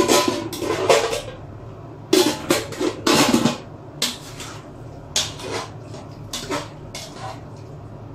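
Cooking utensils knocking and scraping against a cooking pot and its lid as the pot is opened and its contents stirred. The knocks come thick in the first three seconds or so, then more sparsely.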